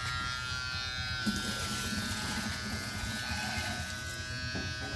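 Electric hair clippers running with a steady buzz as they cut hair. The buzz turns rougher and hissier from about one second in until about four seconds in.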